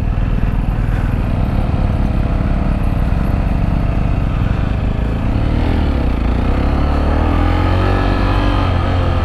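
Sinnis Terrain T125's 125 cc single-cylinder engine running while being ridden, with a heavy low rumble of wind and road noise. From about halfway through, the engine note rises and falls with the throttle.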